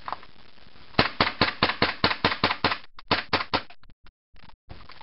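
KSC USP .45 gas-blowback airsoft pistol firing a rapid string of shots, about five a second, each a sharp crack as the slide cycles. The string breaks up about three seconds in.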